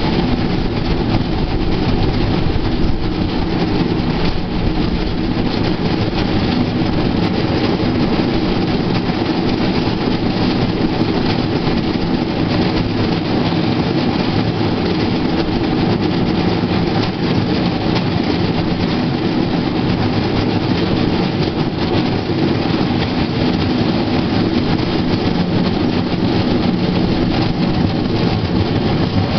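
Steel wheels of a pedal-powered rail bike rolling along old, rusty rails: a steady, loud rolling noise with a low droning hum.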